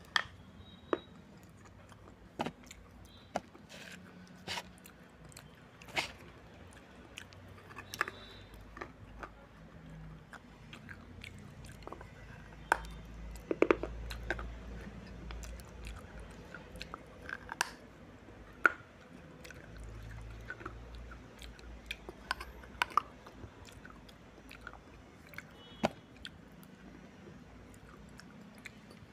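Hard fired red clay being bitten and chewed: pieces of a clay surai water pot crunching and cracking between the teeth in scattered, irregular sharp snaps.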